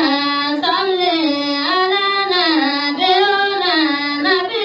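A single voice singing a devotional chant, drawn out in long notes that glide up and down with a slow rise and fall of pitch.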